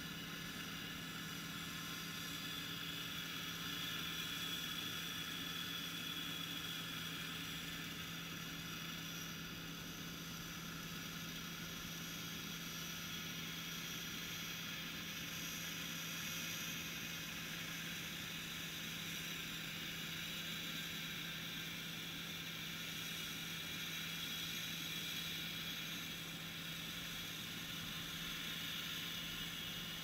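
Vintage combine harvester running steadily at close range: a constant engine-and-machinery drone with a steady low hum and no changes in pitch or load.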